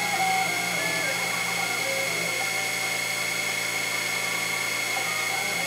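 Sherline CNC mill cutting a 1-inch Delrin round with an end mill during simultaneous fourth-axis machining: a steady machine whine with a high constant tone, and short pitched tones shifting up and down as the stepper motors change speed.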